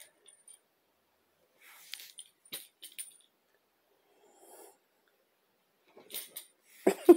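Faint rustling and a few small clicks as a cat plays on a knitted blanket, then near the end a person starts laughing in quick short bursts.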